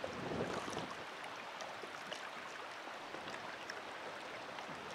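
Wind on the microphone over choppy lake water, with water lapping and small splashes: a steady, fairly faint rush of noise.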